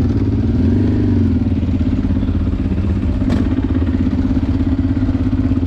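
Honda Transalp 600 V-twin engine running at low revs, with a short rise and fall in revs about a second in. A single sharp knock a little after three seconds.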